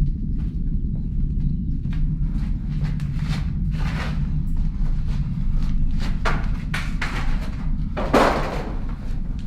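A steady low rumble with a faint held tone, under irregular knocks and thuds; the loudest thud comes about eight seconds in.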